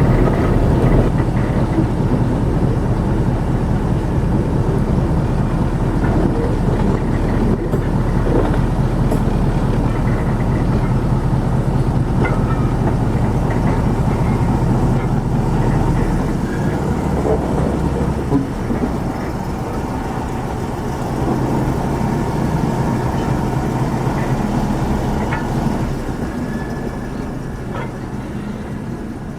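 Train running along the track, a steady rumble whose deepest part falls away about halfway through.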